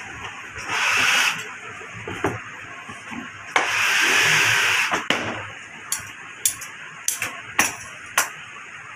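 Leather welding gloves being handled: two stretches of rough rustling friction as a glove is worked right side out, then a run of about seven sharp snaps and slaps as the leather is flicked and pressed flat.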